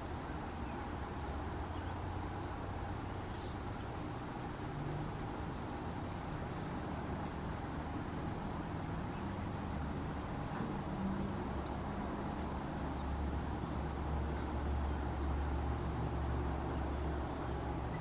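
Outdoor ambience of insects trilling steadily in high, fast pulses, over a low steady rumble. Three brief high chirps come through, about two and a half, six and twelve seconds in.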